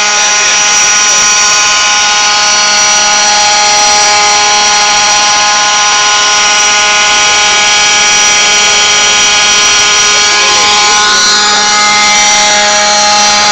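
Small gasoline engine of a radio-controlled model helicopter running at a steady speed: a loud, even, high-pitched whine that holds one pitch.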